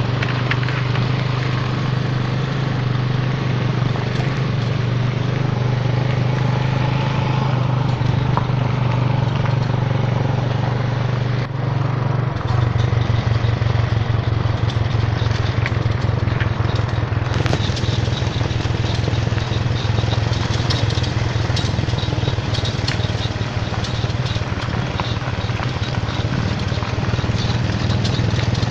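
Motorcycle engine running at steady speed, heard from on the bike, under a constant rush of wind and road noise. The sound shifts abruptly twice, about twelve and seventeen seconds in.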